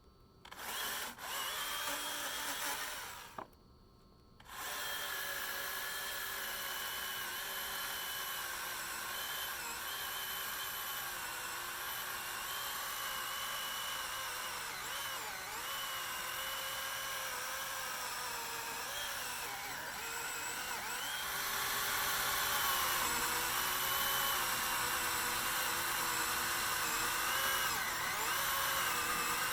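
Husqvarna 120i 40-volt battery chainsaw's electric motor whining: a short run, a stop of about a second, then running continuously with its pitch sagging and recovering as the chain is loaded in firewood. It gets louder about two-thirds of the way through.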